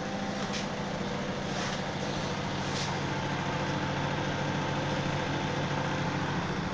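Microwave oven running with a steady hum. Three faint ticks sound in the first three seconds, about a second apart.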